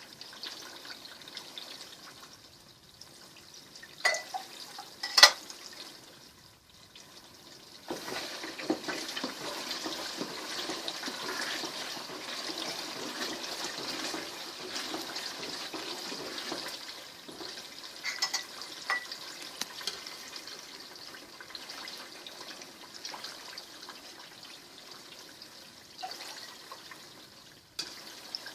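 Liquid pouring steadily for about ten seconds, then going on more faintly as a trickle. Two sharp clinks come about four and five seconds in, and a few lighter ones later.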